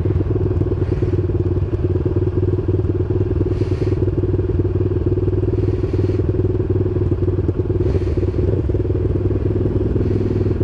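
Honda Sonic 150R's single-cylinder engine running at a steady, unchanging note while the motorcycle cruises.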